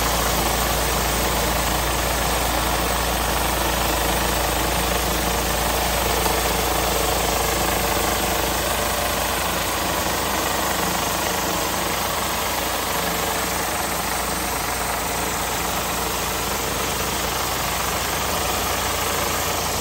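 Whisper Wash Maxima surface cleaner running over concrete: its spinning spray bar blasts high-pressure water against the slab, a steady dense hiss. An engine runs steadily underneath.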